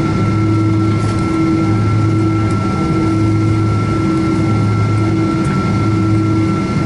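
Cabin noise of a Boeing 777-200ER rolling on the ground after landing: a steady, dense rumble with a low drone that swells and fades every second or so, and a thin, high, steady whine over it.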